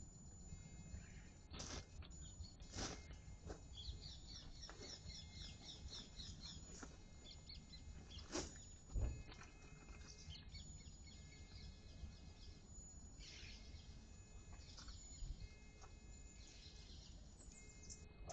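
Faint outdoor ambience: small birds chirping, with a quick run of repeated high chirps a few seconds in, over a low steady rumble and a few scattered clicks.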